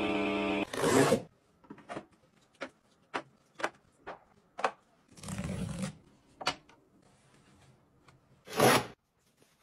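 A portable mini washing machine's motor hum cuts off just after the start. Then come short clicks and taps of plastic and glass bottles and jars being set down and slid onto a shelf and a plastic organizer, with three louder rubbing swishes, the loudest near the end.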